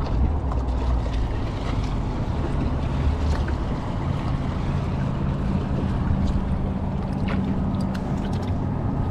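Boat engine running at idle, a steady low hum, with wind buffeting the microphone.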